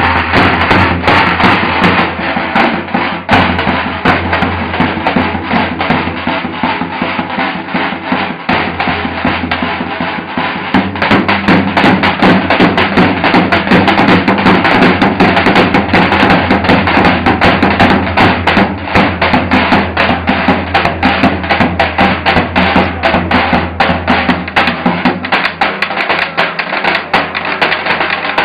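Davul, the Turkish double-headed bass drum, beaten in a fast, continuous rhythm, by two drummers for much of it. Underneath runs accompanying music with a steady low note that fades out near the end.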